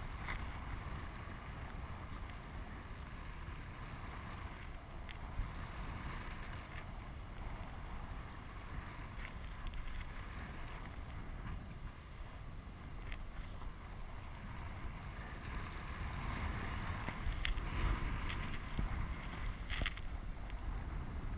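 Wind from the paraglider's flight rushing over the microphone: a steady low rumble that grows louder over the last few seconds.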